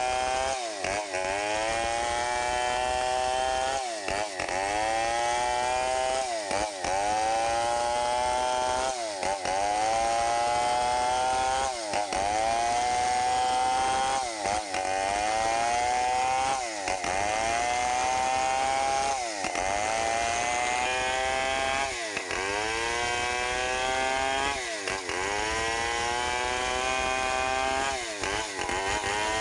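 Stihl 070 chainsaw, a big two-stroke, ripping a log lengthwise at high revs. The engine's pitch dips sharply about every two and a half seconds and climbs back each time.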